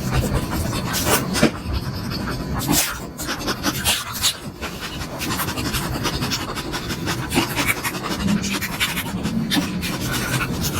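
Close-miked chewing of momos (steamed dumplings): wet mouth clicks and lip smacks come thick and irregular, with breathing between bites.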